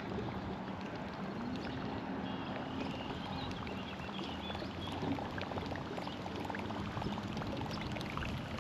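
Water lapping and splashing against a small fishing boat, with a faint steady hum from an electric trolling motor and scattered small clicks.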